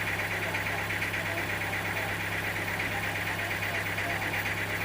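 An engine running steadily at low speed, with a steady high buzz over it.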